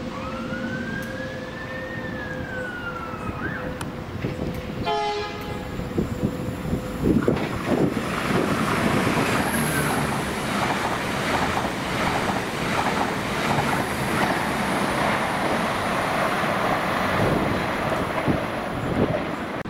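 Irish Rail 22000 Class ICR diesel multiple unit passing through the station at speed: a short horn blast about five seconds in, then the loud running noise of the wheels and carriages going by from about seven seconds on.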